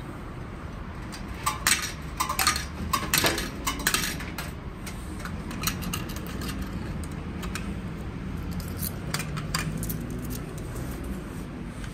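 Old coin-operated snack vending machine being worked: a cluster of metallic clicks, clunks and clinks about two to four seconds in, then a few scattered coin-like clinks later on.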